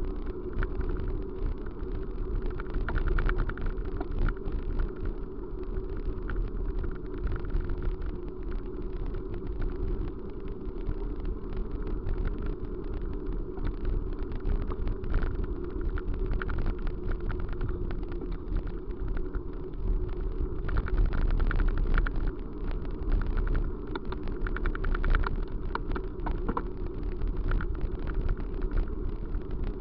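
Steady running noise of a moving vehicle: a low rumble with a constant hum and frequent light rattles and clicks.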